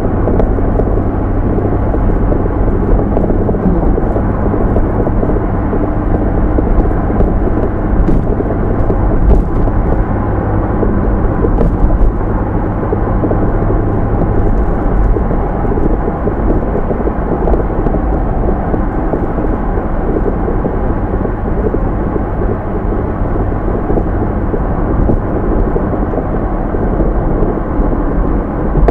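Car engine sound effect: a steady, loud low rumble of a running car, with a low hum in it that fades out about halfway through.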